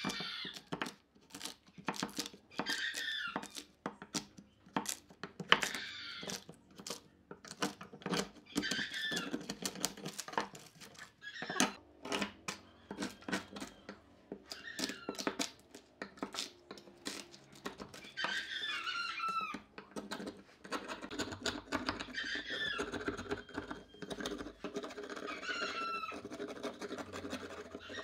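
A hand chisel breaking out the waste between closely spaced saw kerfs in a pine board. The thin wood slats snap and crack off in quick, irregular clicks, and a high, falling squeak comes about every three seconds.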